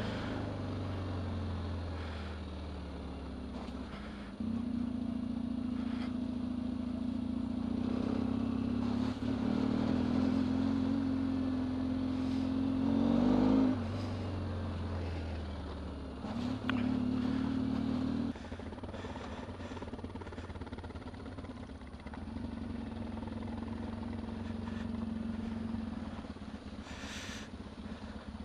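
Yamaha trail motorcycle's engine running at low speed through mud, the throttle opening and closing, with a rise in revs and a sudden drop about thirteen seconds in. Scattered knocks come from the bike jolting over the ruts.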